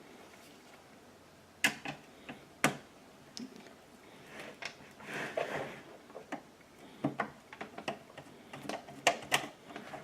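Irregular clicks and knocks of a PC power supply and metal case being handled while the power supply's screw holes are lined up with the case, with a stretch of rustling in the middle.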